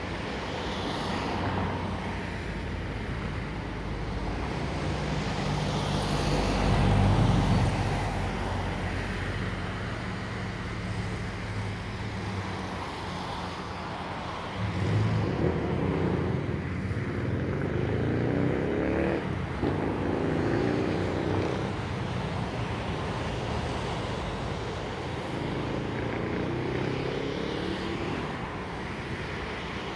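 Road traffic: vehicle engines running and cars passing, with the sound swelling about a quarter of the way in and again around the middle.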